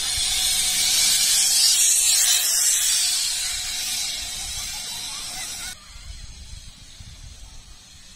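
Zip line trolley pulleys running along the steel cable as a rider slides down: a loud, steady hiss that swells over the first few seconds, then fades and cuts off abruptly about six seconds in.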